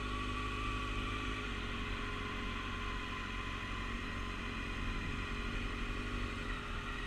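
Motorcycle engine running steadily at low revs during a slow manoeuvre, with no revving.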